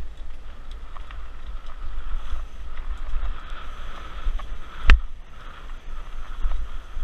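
Wind buffeting the camera microphone over the rolling clatter of a Pivot Mach 5.7 mountain bike riding down a rough dirt trail, with small rattles and ticks throughout. A single sharp knock just under five seconds in is the loudest sound.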